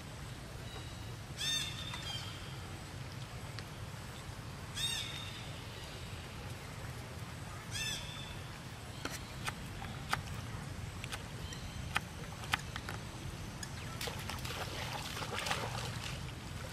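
Monkeys swimming through a shallow flooded pond, the water splashing and sloshing, most strongly near the end. A short chirping animal call comes three times, about three seconds apart, in the first half, and a few sharp clicks follow.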